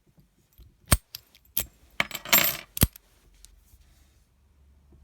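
Sharp metallic clinks and a short clattering rattle of small metal objects: four separate clicks, with a brief jingling rattle between the third and the fourth.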